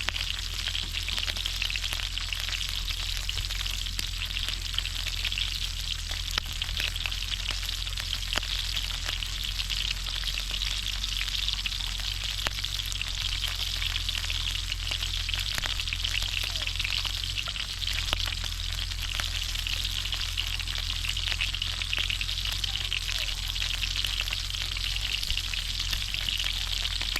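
Pork belly frying in hot oil: a steady sizzling hiss with scattered small pops and crackles.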